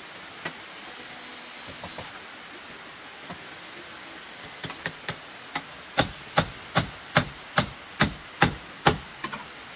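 A run of sharp, evenly spaced knocks, as from a tool striking something hard. The knocks start about halfway through, come about two and a half a second and grow louder, over a steady hiss.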